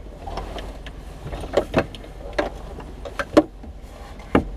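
A series of sharp knocks and clunks on the parked race car's bodywork, about seven of them at uneven intervals, over a low steady hum.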